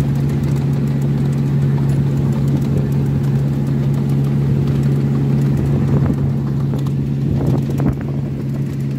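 Engine of a miniature railway diesel locomotive running steadily as the train travels, a constant low drone with overtones.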